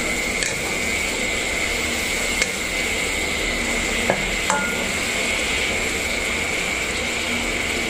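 Glass noodles boiling in water in a nonstick pan, a steady bubbling hiss, while a wooden spatula stirs them, knocking lightly against the pan a few times. The sharpest knocks come about two and a half and four seconds in.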